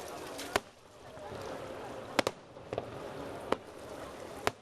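Fireworks bursting overhead: about half a dozen sharp, echoing bangs at uneven intervals, the loudest ones about half a second in, near the middle and at the very end, over a murmuring crowd.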